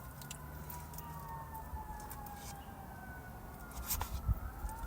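Faint wailing siren, its pitch slowly falling and then rising again near the end, with a few low knocks in the last second.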